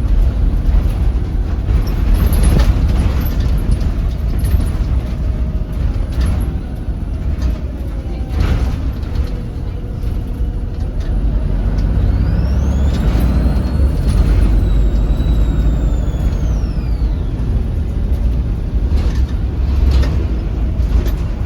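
Volvo B7RLE bus's diesel engine running under way with a heavy low rumble. About halfway through, a high turbo whistle rises and then falls away over several seconds; the whistly turbo is the bus's known trait. A few brief bursts of noise sound over the engine.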